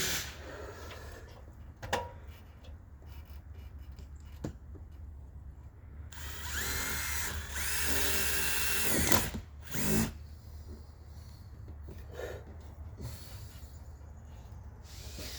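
Power drill driving roofing screws into metal roof panels: two steady runs of about a second and a half each, a little past the middle. A few sharp knocks before and after.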